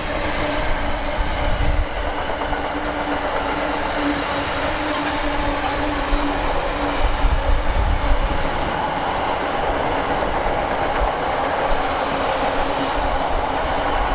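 A train running past on the main line: a steady, loud rushing rumble of wheels on rail with a steady hum through it. Wind buffets the microphone underneath.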